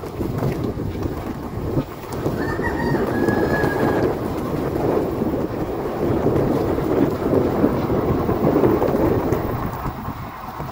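A steady rumbling noise runs throughout. A rooster crows once in the background about two and a half seconds in; the call lasts about a second and a half and falls slightly at the end.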